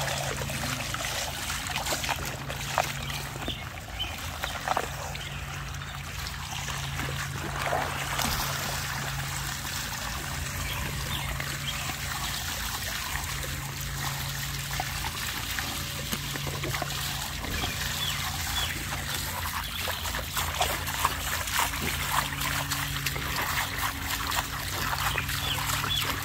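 Water from a running garden hose splashing into a plastic wading pool and spilling over its rim, as a dog bites and splashes at the stream, with continual spatters of water.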